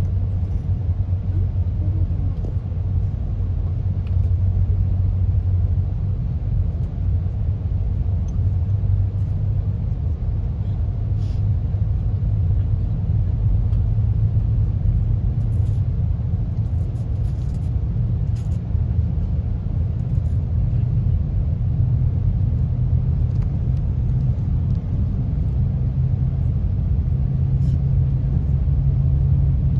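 Steady cabin rumble of the L0 series superconducting maglev train accelerating from about 150 to over 200 km/h, around the speed where it leaves its rubber tyres for levitated running. A low drone runs under the rumble and edges up in pitch in the second half as the train gains speed.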